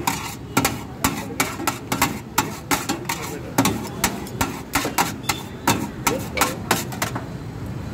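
Metal spatula and scoop clacking against a steel tray as shaved shawarma chicken is chopped and tossed: quick, irregular metallic strikes, several a second, that stop about seven seconds in.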